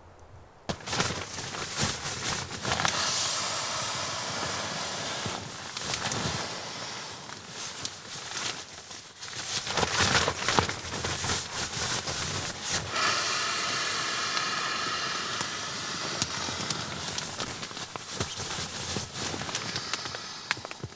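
Air hissing steadily as an inflatable sleeping mattress is pumped up, in two long stretches about 13 s apart, with fabric rustling and knocks of handling between them.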